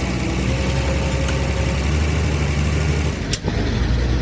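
Engine idling steadily; its note changes about three seconds in, with a short sharp click.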